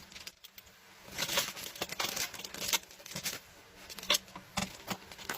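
Rustling and scattered sharp clicks and crackles of objects being handled, close to the microphone.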